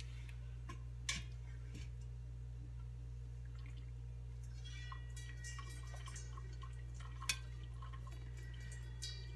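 Metal tongs clicking against a stainless steel steamer basket as wet, steamed wool yarn is lifted out, with water dripping onto the metal in a flurry of short ringing pings during the second half. A steady low hum runs underneath.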